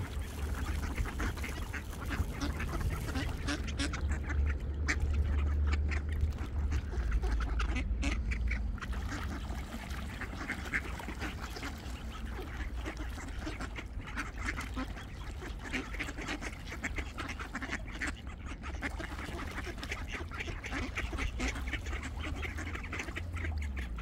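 A flock of ducks quacking, many short calls overlapping without a break, over a steady low rumble.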